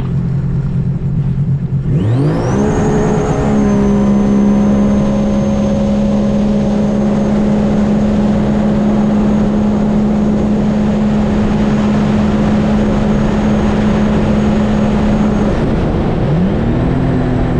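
Supercharged Rotax three-cylinder engine of a Stage 1 Sea-Doo RXT-X jet ski with a 13/16 Solas three-blade prop, idling and then launched hard about two seconds in. The pitch sweeps up quickly, then holds steady and high with a thin high whine over it. The throttle comes off near the end. On this launch the rider found the prop cavitating.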